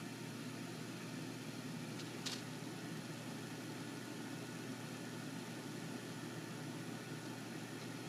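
A steady low hum with hiss over it and one brief click about two seconds in.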